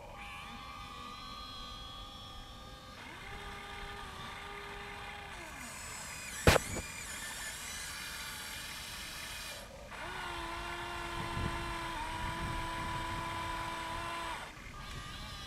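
Electric motors of a Huina RC excavator whining as the boom, arm and bucket move, the steady whine stopping, restarting and shifting pitch in steps. A single sharp click about six and a half seconds in.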